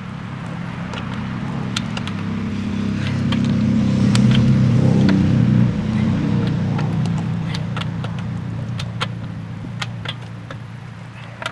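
A passing vehicle's low hum swells to its loudest about four to six seconds in and then fades away. Over it come scattered sharp metallic clicks and clinks from a hand wrench working the lug nuts.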